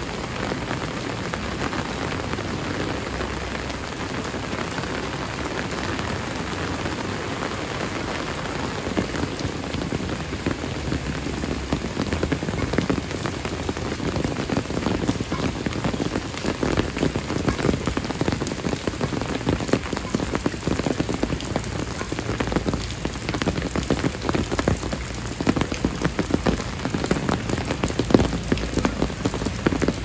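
Heavy rain falling steadily, a dense patter of drops hitting surfaces, growing a little louder and more spattery about halfway through.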